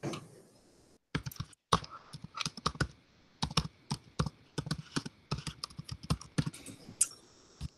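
Typing on a computer keyboard: a run of quick, irregular key clicks with a few short pauses.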